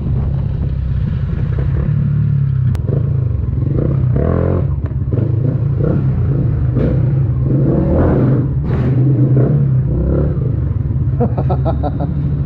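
Yamaha Sniper 150 motorcycle's single-cylinder four-stroke engine running at low speed, then idling as the bike stops, with some brief clattering partway through.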